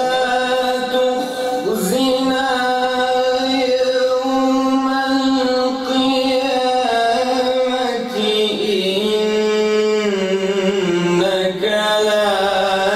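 A male qari recites the Quran in melodic tajwid style, one long unbroken chanted phrase. He holds a steady note, then drops lower about seven seconds in and wavers through ornamented turns before settling on the lower note.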